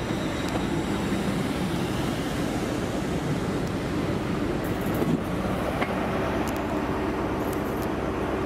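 Hitachi Azuma (Class 800-series) trains moving at the platform: a steady rumble of traction and running gear. A steady low hum joins about six seconds in.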